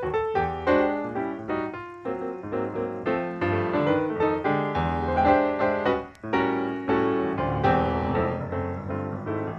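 Background music: piano playing a run of plucked-sounding notes over a low bass line, with a brief pause about six seconds in.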